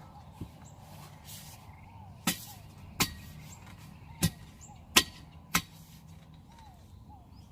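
Five sharp knocks in the middle, irregularly spaced about half a second to a second apart, each with a brief ring, over small birds chirping and a low steady hum.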